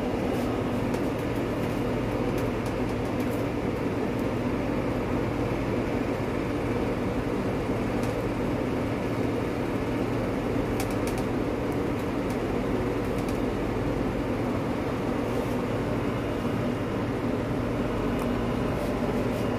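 Steady rushing hum of gas stove burners with eggplants roasting directly over the open flames, with a few faint crackles from the charring skins.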